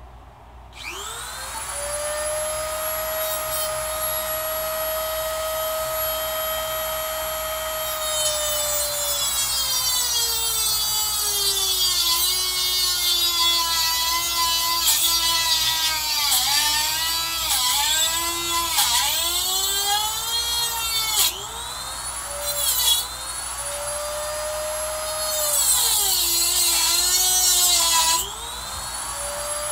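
Dremel rotary tool with a cutoff wheel whining up to speed, then grinding through the metal governor arm shaft. The pitch sags again and again as the wheel bites into the metal and recovers as it eases off, and the tool briefly drops out a couple of times near the end.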